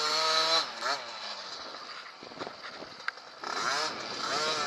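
Small kids' dirt bike engines revving up and down, the pitch rising and falling. The engine sound drops to a quieter stretch in the middle, then comes back up with more rising and falling revs near the end.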